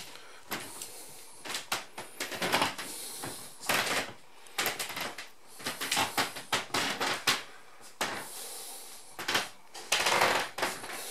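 Irregular knocks, clicks and brief rustles of someone walking and moving about on wooden floorboards, a few sharp strikes a second at times.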